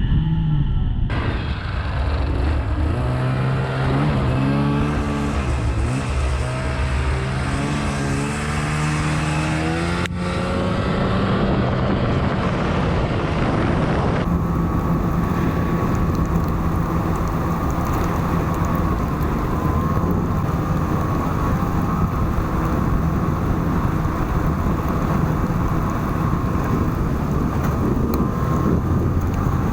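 Snowmobile engine running along a trail, its pitch rising and falling with the throttle through the first ten seconds, then holding a steady cruising speed, with a rushing noise over it.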